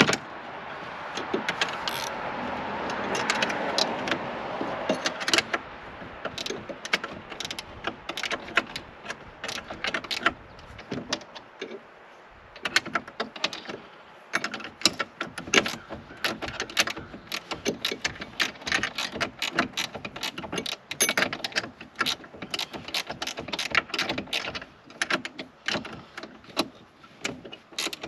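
Metal wrenches clicking and clinking against the boat's steering-shaft nut and helm fittings: many quick, irregular ticks throughout, with a rushing noise under the first few seconds.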